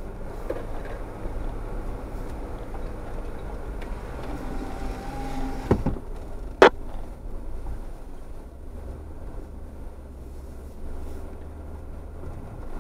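A 4x4's engine running low and steady as it crawls up a loose rocky trail, with one sharp knock a little past the middle.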